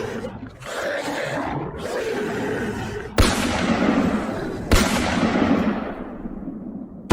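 Action sound effects: a rough roar in broken stretches, then two sharp blasts about three and four and a half seconds in, each trailing off in a long rumble, and another sharp hit at the very end.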